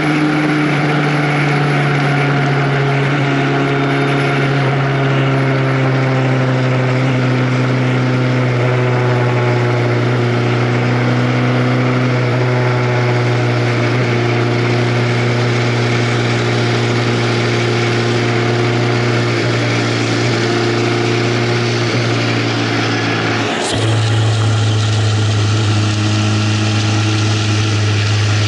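Vehicle engine running steadily under a haze of wind noise, its note sinking slowly. Near the end there is a click and the note steps down to a lower pitch.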